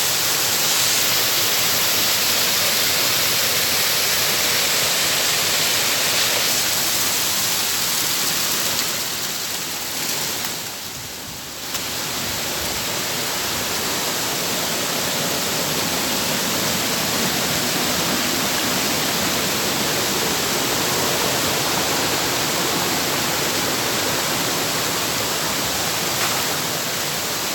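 Waterfall, a steady rush of falling water, dipping quieter for a second or two about eleven seconds in.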